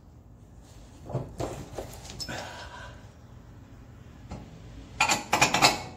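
A man straining to compress a stiff new Bilstein 5100 shock absorber and force it onto its mount: a few scattered knocks and effort noises, then a burst of loud, rapid ones near the end as it goes into place.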